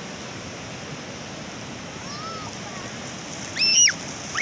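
Sea surf washing steadily on the shore, with a faint high cry about halfway and a loud, high-pitched shriek of a child near the end.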